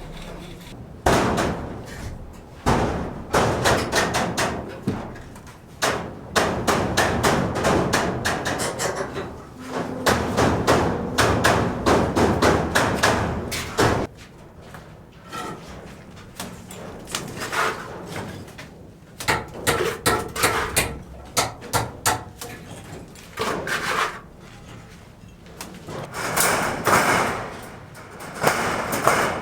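Building work: many sharp knocks and impacts in quick succession, like hammering, with quieter stretches about halfway through.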